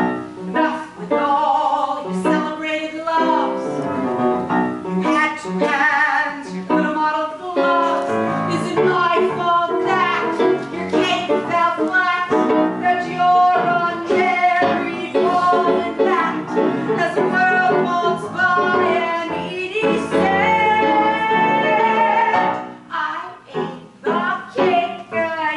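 A woman singing a theatrical song solo over instrumental accompaniment, with long held notes, several sustained for a few seconds each in the middle. Near the end the singing breaks into short phrases.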